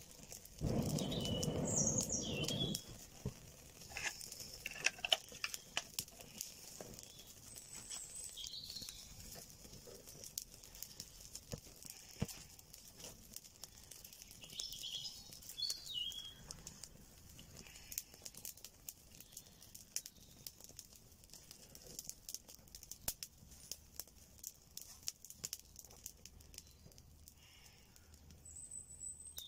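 A person blowing hard into a freshly lit kindling fire for about two seconds at the start, then dry twigs crackling and popping steadily as the flames take hold. A few short bird chirps come through now and then.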